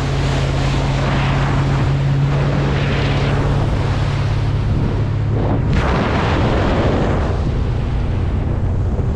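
Motorized watercraft under way: a steady engine hum with water rushing past the hull and wind on the microphone. The engine hum fades a little over halfway through, leaving the wind and water noise.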